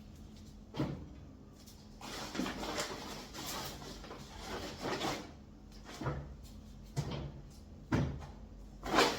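Groceries being handled: plastic packets and bags rustle for a few seconds, with several short knocks as items are picked up and set down on a surface.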